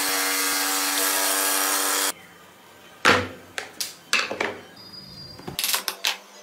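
Power saw running and cutting through a thick wooden block with a steady whine, stopping abruptly about two seconds in. Then a sharp wooden knock followed by a scatter of smaller knocks and rattles as the sawn-out pieces of wood are broken loose and handled.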